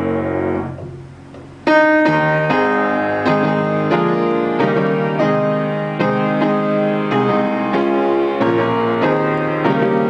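Piano playing: held notes die away over the first second or so, then a loud chord starts a steady run of chords and melody notes.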